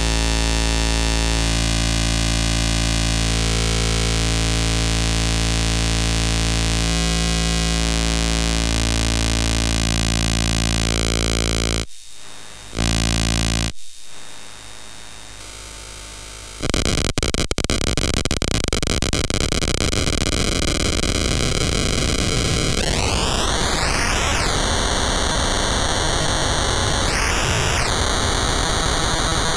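ARP 1601 sequencer clone run at audio rate as an oscillator, clocked by the square wave of a TTSH (ARP 2600 clone): a loud, steady, buzzy synth tone whose timbre changes in steps as the sequencer's sliders are moved. Around the middle it cuts out and comes back for a few seconds, and near the end its pitch sweeps upward, holds, then briefly jumps up and back down.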